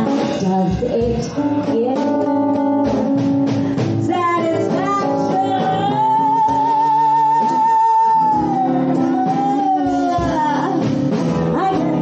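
Live band music with a singer, guitar and band under a sung melody; in the middle one long note is held with vibrato.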